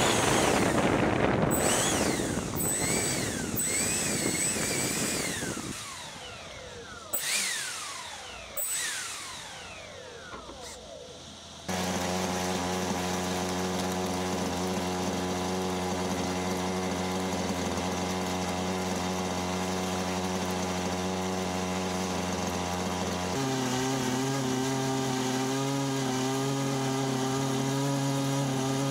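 RC airboat's four 90 mm electric ducted fans whining and spinning down with falling pitch, with two short throttle blips. Then an RC jet boat's OS 1.2 nitro engine running steadily at a held pitch, which shifts about two-thirds of the way through.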